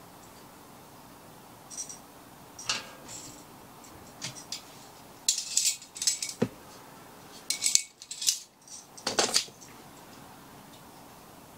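Long metal fire tongs clinking and scraping against a small steel wood stove and firewood, in several scattered bursts of clatter, busiest in the middle and later part.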